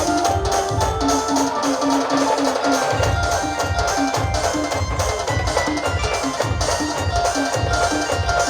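Maharashtrian wedding-style band playing an instrumental passage of a folk song: a heavy bass drum beating steadily under a melody of short repeated notes.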